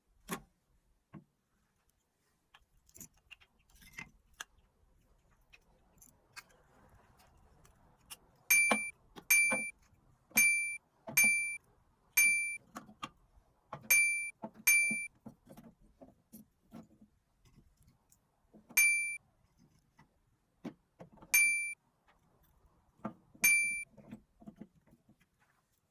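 A run of about a dozen sharp metallic clinks, each ringing briefly and fading fast, in irregular groups, among fainter knocks and handling noise.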